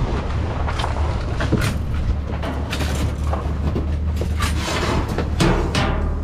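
Rummaging through a dumpster: repeated knocks, clatter and rustling as items are moved and pulled out, over a steady low rumble.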